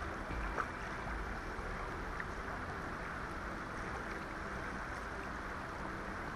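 Steady rushing of river water flowing past the bank, with a low rumble underneath.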